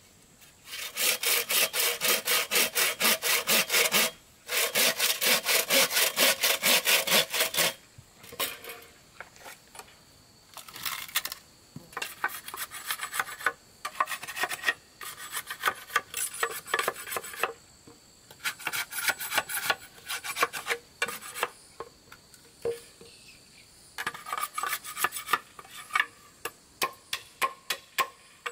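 Wood being sawn by hand: two long bouts of fast, even strokes, then shorter stop-start bursts of sawing.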